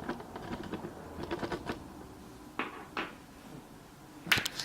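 Light, irregular clicks and taps of a small screwdriver working the screws of a MacBook Pro's aluminium bottom case, with one louder click near the end.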